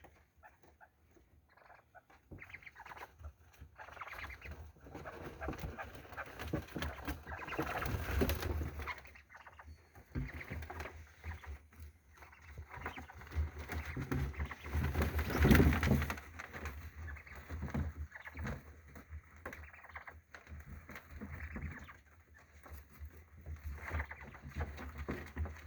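Young chicken–partridge hybrid chicks calling softly amid irregular rustling and knocks, growing louder a little past the middle before easing off.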